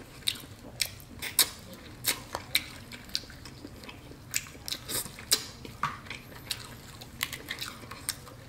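Cooked snow crab leg shells being cracked and snapped apart by hand: irregular sharp cracks and crackles of shell, with some chewing.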